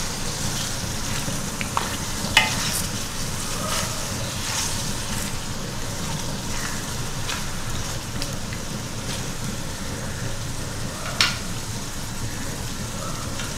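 Raw chicken pieces frying with onions in hot oil in a large aluminium pot: a steady sizzle as the pieces are stirred and turned. Two short sharp knocks, one about two seconds in and one near the end.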